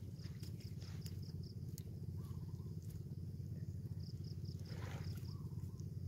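Insect chirping in short runs of rapid, high-pitched pulses, about five a second, over a steady low rumble.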